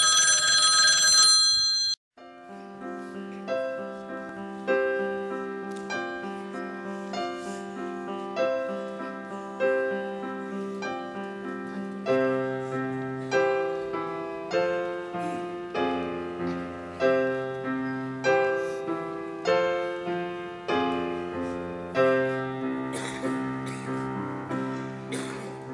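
Background music: a gentle piano tune with a slow, even pulse, a new chord about every second, each note fading away. It is opened by a bright bell-like chime that stops about two seconds in.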